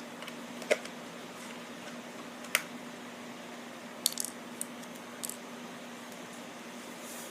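Plastic toy helicopter parts clicking and knocking as they are handled and taken apart: a handful of sharp, scattered clicks, with a quick cluster about four seconds in, over a steady low hum.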